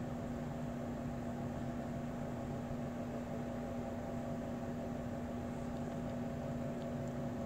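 Steady background hum and hiss of a running fan or appliance, with a constant low tone and fainter higher tones, unchanging throughout.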